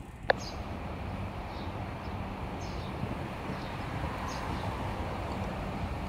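Steady low mechanical hum, with a single sharp click about a third of a second in and faint, irregular high chirps scattered through.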